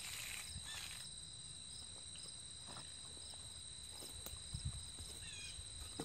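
Insects drone steadily with repeated high chirps. A faint scrape of a magnesium float on wet concrete fades out in the first second. A few soft footsteps follow around the middle.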